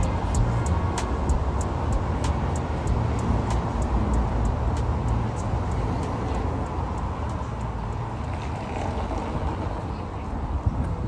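City street traffic running steadily with a low rumble, alongside a fast, even ticking of about three clicks a second that fades out about halfway through.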